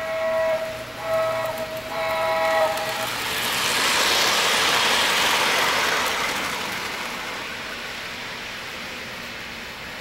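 O-scale model diesel locomotive's electronic sound-system horn blowing in three blasts, the last ending about three seconds in. Then the model train's wheels rumble past on the track, loudest in the middle, and the sound fades away.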